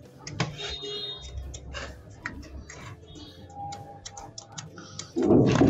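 Small irregular clicks and scrapes of a hand tool on a nut and fittings under a ceramic wash basin as the nut is tightened, then a sudden, much louder rubbing noise starting about five seconds in.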